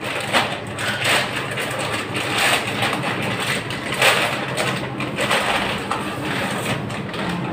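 Thin plastic courier mailer bag crinkling and crackling continuously as it is handled and pulled open by hand.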